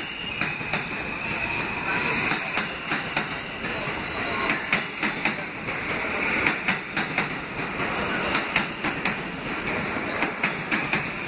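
Kawasaki R160 New York subway train rolling past close by, its steel wheels clacking irregularly over the rail joints. A steady high squeal runs underneath and grows stronger in the second half.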